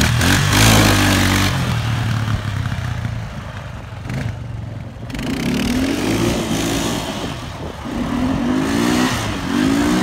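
Kawasaki Bayou KLF400 ATV's single-cylinder four-stroke engine revving up as it accelerates through the gears, its pitch rising and falling back four times at each shift. There is wind noise on the microphone.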